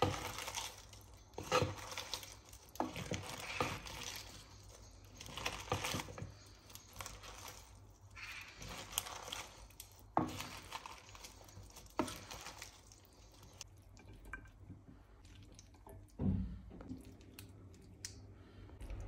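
Salad being tossed with kitchen tongs in a wooden bowl: wet, squishy rustling of lettuce, chicken and creamy dressing in irregular strokes, with now and then a sharp click of the tongs. A dull thump comes about sixteen seconds in.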